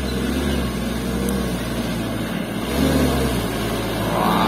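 Toyota Dyna Rino dump truck's diesel engine running under load as the truck works its way through mud and ruts. The engine eases off briefly about halfway through, then picks up again.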